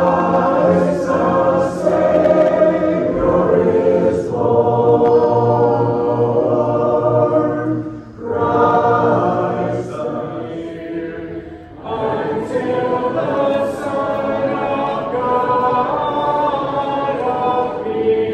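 Congregation singing a hymn together in long held phrases, pausing briefly about every four seconds.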